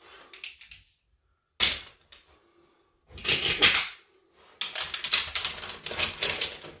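The folding leg sections of an OEX lightweight camping cot clicking and clattering as they are handled and bundled together, then laid on the cot's fabric. A sharp click comes about a second and a half in, a loud rattle a little after three seconds, then a run of quick clacks and rustling near the end.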